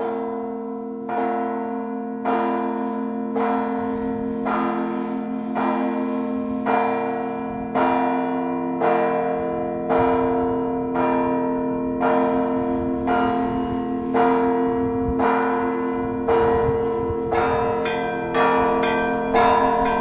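Russian Orthodox church bells ringing (zvon). A bell is struck about once a second over the sustained hum of the larger bells, and quicker, higher small bells join in near the end.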